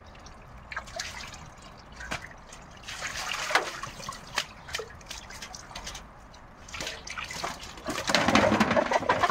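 Pet crow bathing in a metal basin of water, splashing in it about three seconds in. Near the end comes a louder burst of splashing and wet wing-flapping.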